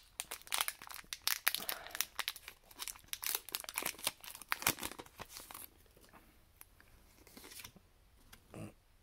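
A Pokémon trading card booster pack's plastic wrapper being torn open and crinkled, with dense crackling for the first five or six seconds, then quieter rustling of the cards being handled and a soft bump near the end.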